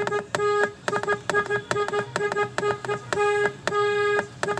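Car horn honked over and over in a fast rhythm, a run of quick short toots mixed with a few longer blasts, all on one steady pitch.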